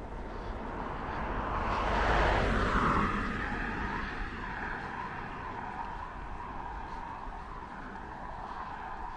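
A car passing on the adjacent road, swelling to its loudest about two seconds in with a falling pitch as it goes by, then fading into steady traffic noise.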